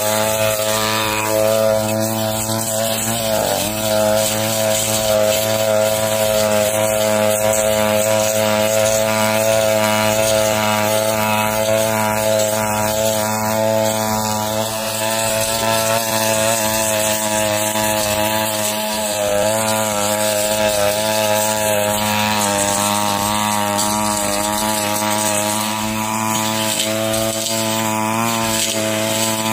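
Backpack brush cutter fitted with a steel blade, its small engine running steadily at high speed while cutting dry, dead grass, the pitch wavering briefly a few times as the blade takes load.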